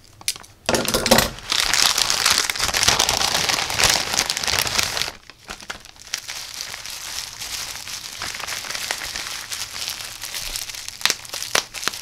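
Plastic packaging crinkling: a plastic mailer bag rustling loudly as it is opened, then from about halfway a bubble-wrap bag crinkling more softly as it is handled, with a few sharp crackles near the end.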